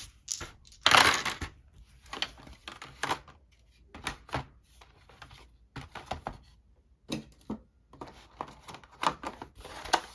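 Board-game components being handled: an irregular string of light clicks and knocks, with a louder rustling scrape about a second in.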